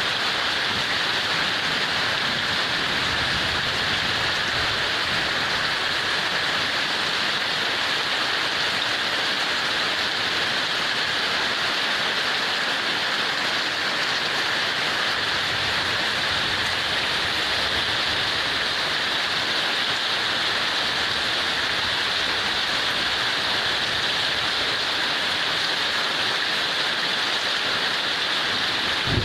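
Heavy rain falling steadily: an even, unbroken hiss of drops.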